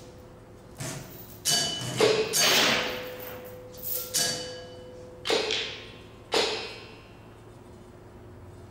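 Percussion ensemble playing a sparse, scattered pattern of about eight strikes on small resonant objects, several leaving a clear ringing tone that dies away. It goes quiet after about seven seconds.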